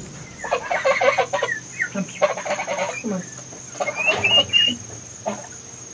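Young chickens clucking in short bursts, with a few high rising peeps a little after four seconds in.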